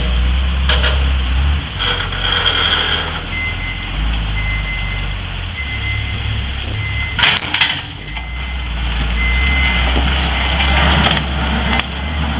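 Diesel engine of a Hyundai 740-3 wheel loader running steadily while its backup alarm beeps repeatedly as it reverses, with a few clanking knocks along the way.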